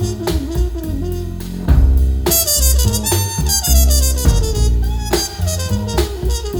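A song's instrumental passage, with drums, bass and a melodic lead, played back through a homemade three-way loudspeaker built around a crude planar-magnetic midrange panel.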